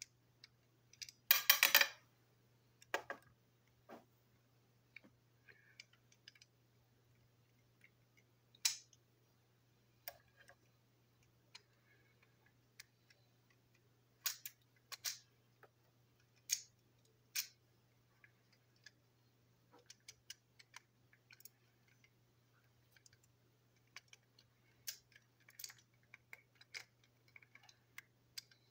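Small plastic toy engine parts being handled and fitted together: scattered light clicks and clatters, the loudest cluster about a second and a half in, over a faint steady low hum.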